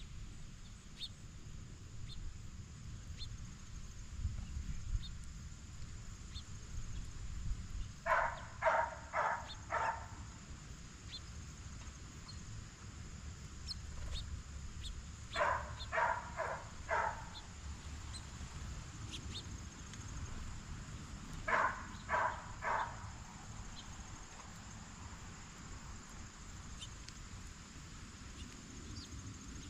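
Blue jay calling: three series of three or four harsh, rapidly repeated jay notes, several seconds apart.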